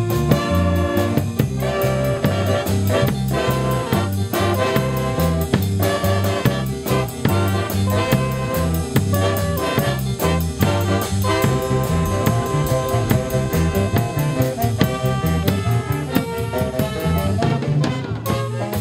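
Lively instrumental music with a steady drum beat and a bass line stepping from note to note.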